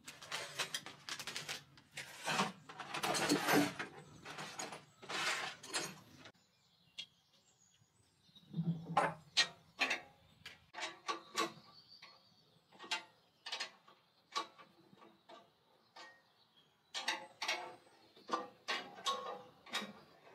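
Hand tools knocking, clicking and clinking against a small wooden cabinet as it is worked on, with scraping and rustling for the first six seconds or so and then scattered sharp clicks and knocks.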